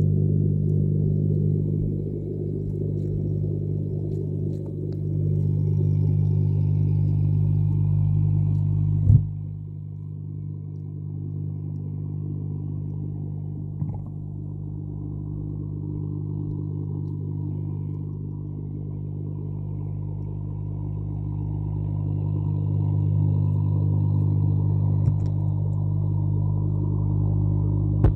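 A steady low hum from a catfish pond, which the uploader takes for the catfish making sounds, with a sharp knock about nine seconds in and a fainter one at about fourteen seconds.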